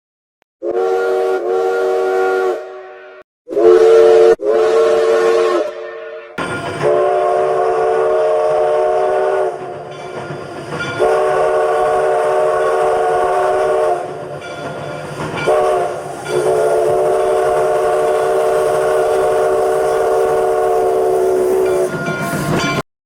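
A train's multi-chime horn: two short chord blasts, the second the loudest. Then, over the rumble of a running train, it sounds long, long, short, long, the grade-crossing signal, and cuts off abruptly.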